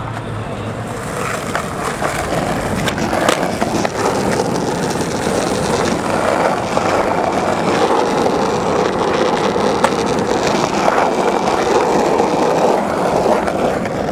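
Skateboard wheels rolling over paving stones, a steady rumbling grind, with a few sharp clacks.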